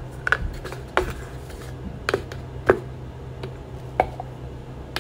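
Light plastic clicks and taps as a plastic powder canister and its lid are handled and opened, about half a dozen scattered clicks over a steady low hum.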